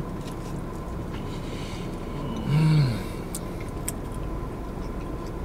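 A man chewing a mouthful of food gives a closed-mouth "mmm" of enjoyment about two and a half seconds in, rising then falling in pitch. Under it runs the steady low rumble of the car's cabin, with a few small mouth clicks near the middle.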